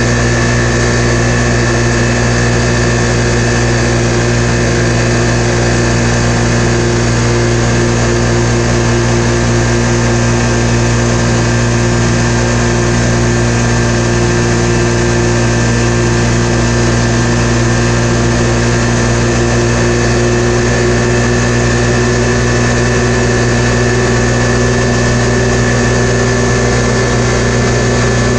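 Polaris RZR 570's single-cylinder engine running steadily at high revs, about 7,100 to 7,200 rpm, while cruising at around 45 mph in high range on its Dalton clutch tune.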